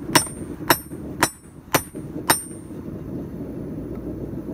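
Hand hammer forging a hot railroad spike on a steel anvil: five ringing blows about two a second, stopping about two and a half seconds in.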